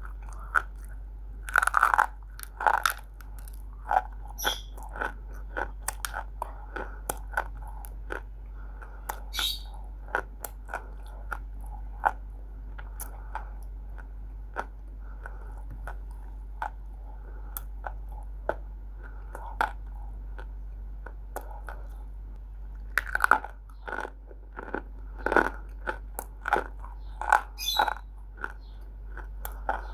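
Close-up crunching of roasted multani mitti (fuller's earth clay) being bitten and chewed, with many short, dry, brittle cracks. The crunches come in louder clusters about two seconds in and again near the end.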